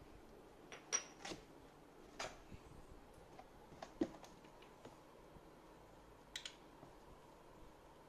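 Light metallic clicks and taps as the metal parts of a 60 mm flat-burr coffee grinder are handled and set down. There are about a dozen irregular taps, the sharpest about one second in and about four seconds in.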